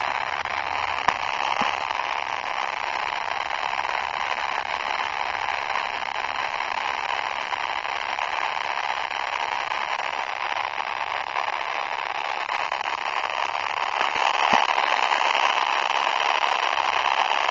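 Poop sound effect blown out with heavy distortion, heard as a steady, harsh crackling noise with a few sharp clicks; it gets a little louder in the last few seconds.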